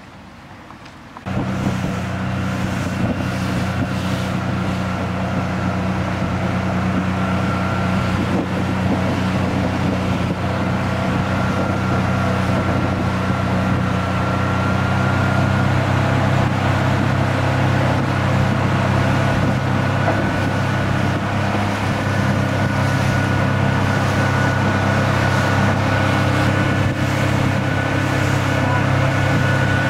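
Honda four-stroke outboard motor running steadily with the boat underway. It comes in suddenly about a second in and grows a little louder over the next fifteen seconds.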